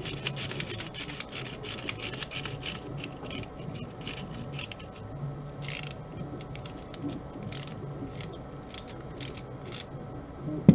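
A small screw being turned by hand with a screwdriver into a small plastic part: a run of quick small clicks and scrapes, dense for the first few seconds and then thinning out. A single knock near the end.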